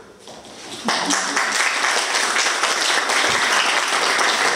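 Audience applauding, breaking out about a second in and then holding steady.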